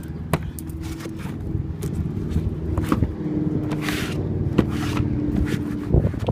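A steady low engine hum runs under light scrapes and clicks as leaves are picked out of a car's engine bay, with two short hisses about four and five seconds in.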